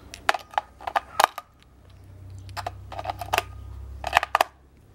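AA batteries being pressed into the plastic battery compartment of a radio-control transmitter: a run of sharp plastic clicks and clacks, in a few short clusters.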